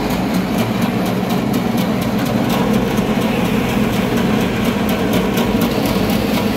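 Electric cassava chip slicer with a 350-watt motor running steadily under load, a cassava root being pushed into its spinning blade disc. A rapid, even ticking runs over the motor's hum as the blades cut the root into thin slices.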